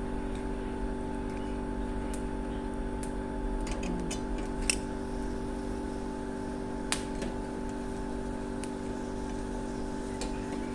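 Chestnuts roasting over a fire, giving a scattering of sharp clicks and crackles, the loudest about five seconds in, over a steady mechanical hum.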